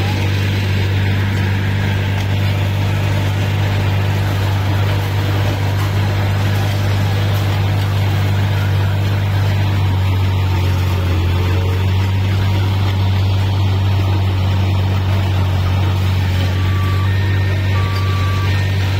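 Asphalt milling machine and dump truck working at close range: a steady heavy diesel hum over the noise of the road surface being milled. About two seconds before the end a reversing alarm starts beeping, alternating between two pitches.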